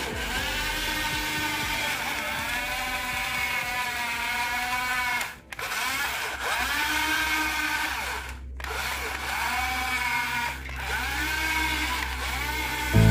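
A small electric motor whining, its pitch rising and falling over and over, cut off briefly about five and a half seconds in and again about eight and a half seconds in.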